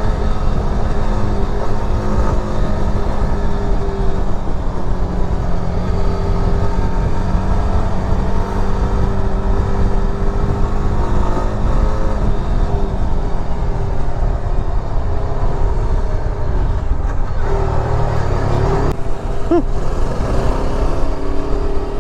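Motorcycle engine running steadily while riding. Its note holds for the first dozen seconds, falls away about two-thirds of the way through, and shifts again near the end.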